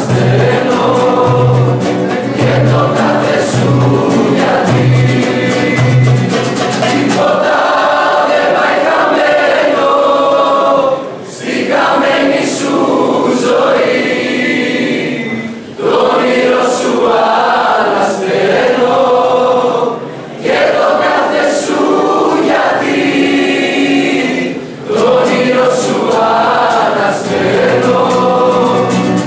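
A group of voices singing together to a strummed acoustic guitar, in sung phrases with short breaks between them.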